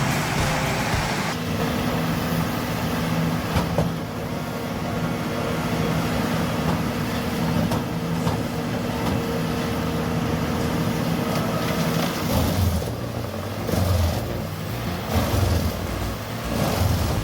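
HG6800TX horizontal grinder running under its large engine with a steady machine drone. About twelve seconds in, the drone gives way to uneven low surges.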